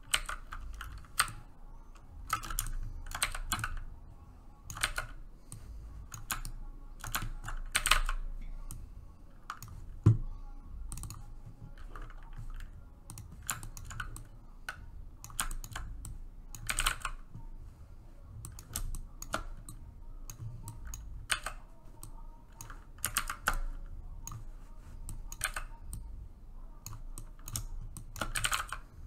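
Computer keyboard keys clicking in scattered single strokes and short runs, with one low thump about ten seconds in.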